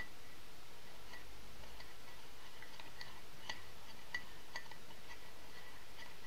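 A spoon stirring yeast and warm water in a ceramic mug, with light clinks against the mug's side at about two or three a second, over a steady hiss.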